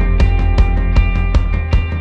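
Background music with a steady drum beat under held instrumental tones.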